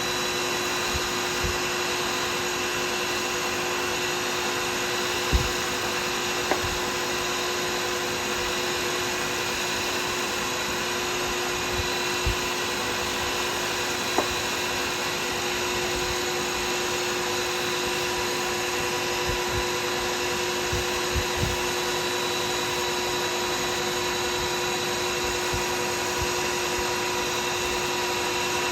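Woodturning lathe running at a steady speed with a constant motor whine, spinning a pen blank during the polishing stage. A few soft knocks break through now and then.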